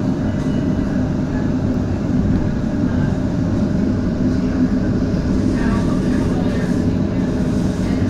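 HTM GTL8 articulated tram running on the rails: a steady rumble of wheels on track with a constant motor hum in it.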